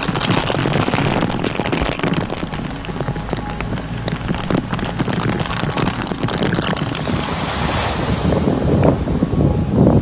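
Typhoon storm noise: strong wind buffeting the microphone over churning, rushing water. A sharper hiss comes in about seven seconds in.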